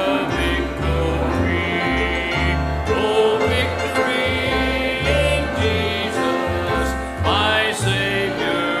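Country-style gospel hymn music: a steady, pulsing bass line under singing voices and plucked-string accompaniment.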